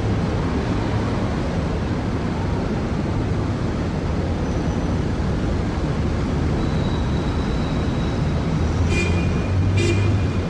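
Heavy city traffic heard from high above: a steady wash of road noise with a low engine hum. Two short car-horn honks sound about a second apart near the end.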